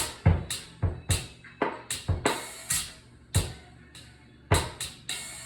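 Drum kit played in a slowed reggae groove: kick drum and snare hits with cymbal strokes, falling in short clusters rather than an even beat.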